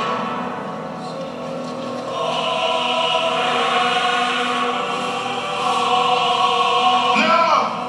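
Film soundtrack music with a choir singing long held notes, with a brief swoop in pitch about seven seconds in.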